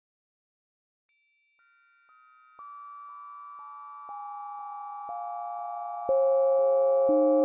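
Synthesized bell timbre built up partial by partial. After about a second of silence, pure steady tones enter one at a time, about twice a second, each lower than the one before. They pile up into a sustained bell-like chord that grows louder with each added tone.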